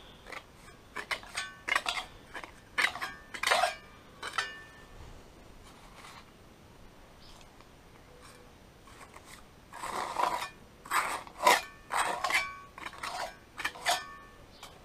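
Small metal trowel scraping and knocking in sand and against the paving and drain channel, a series of sharp clinks, some ringing briefly like struck metal. Two busy stretches: one in the first four seconds and another from about ten seconds in, with a lull between.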